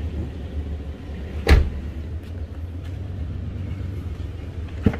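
A car door slammed shut about a second and a half in, over the steady low hum of the Suzuki Grand Escudo XL7's engine idling; a shorter sharp click comes near the end.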